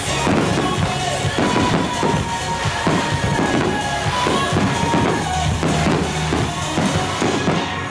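Dance-pop music with a driving drum-kit beat, bass drum and snare strikes coming about twice a second over a steady bass line.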